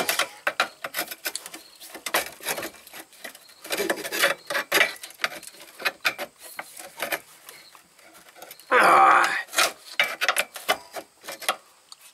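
Irregular scraping, rubbing and clicking of hands and tools working at a stubborn fuel line fitting under a minivan, with a short, louder pitched sound about nine seconds in.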